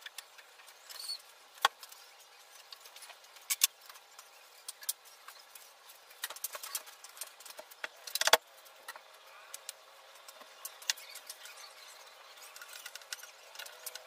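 Scattered clicks, taps and knocks from handling a wooden cabinet and its fittings, with the loudest knock about eight seconds in.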